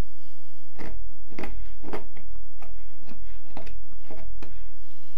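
A knife blade whittling a piece of fatwood, short scraping cuts about two a second as a toggle is shaped.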